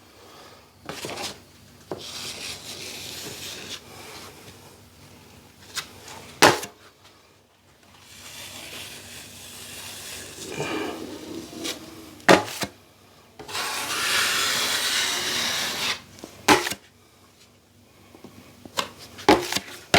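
Plastering trowel scraping across a drywall ceiling patch in long strokes, spreading cornice cement (hot mud), in three spells of a few seconds each. A few sharp taps of the metal tool come in between.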